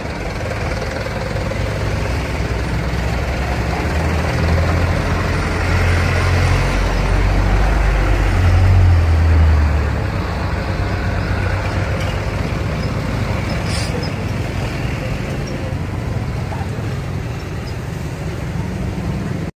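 Heavy truck engine running, its low rumble growing louder to a peak about nine seconds in, then easing off. A brief sharp high-pitched sound comes near the end.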